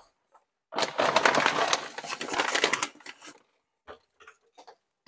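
A brown paper sack crinkling and rustling as it is handled for about two seconds, then a few faint clicks and a thump at the very end.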